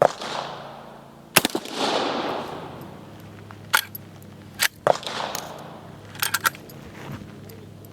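Three blasts from a lever-action 12-gauge shotgun firing buckshot, each ringing out with a fading echo: the first right at the start, the next about a second and a half later, the last near the five-second mark. Between the shots the lever action clacks as it is cycled, and it clacks again afterwards.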